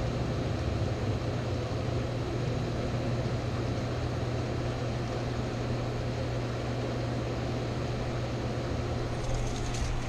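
A steady low mechanical hum with a constant hiss over it. Near the end come brief clicks and rustles as the dog wearing the camera turns and moves.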